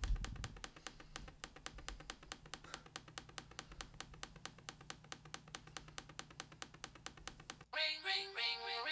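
Faint, fast, even clicking of a laptop trackpad under a finger, about six clicks a second. Near the end an iPhone starts ringing with a melodic ringtone as a call comes in.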